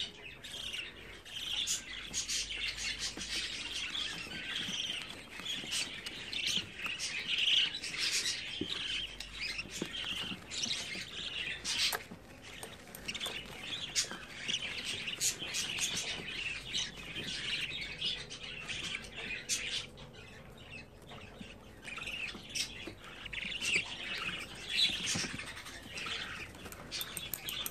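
Budgerigar chicks cheeping over and over in rapid high chirps, the begging calls of hungry nestlings waiting to be hand-fed. The calls thin out for a few seconds after the middle.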